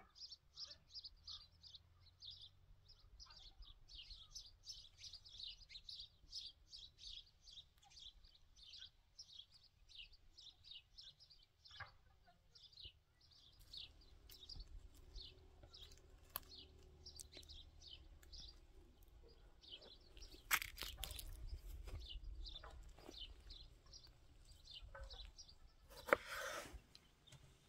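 Small birds chirping faintly, in quick runs of short high notes that keep coming throughout. A low rumble sets in about halfway through, with a few sharp clicks near the end.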